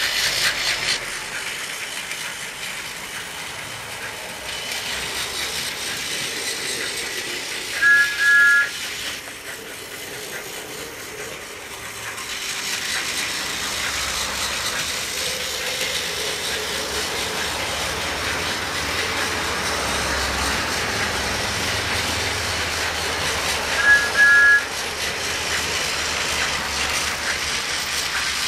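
TOMY Steam Along Thomas battery toy engine running on plastic track, its motor and gears whirring steadily. Its electronic whistle sounds a short two-note toot twice, about sixteen seconds apart.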